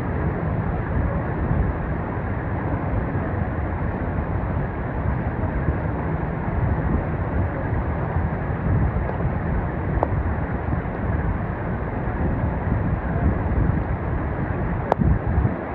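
Steady rushing of a mountain stream, heavy in the low end, with a sharp click near the end.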